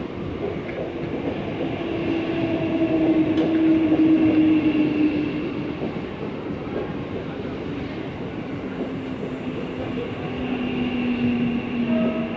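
Mumbai suburban electric local train running alongside a platform, its wheels rumbling on the rails with a steady motor whine that slides slightly lower in pitch. It is loudest about three to four seconds in.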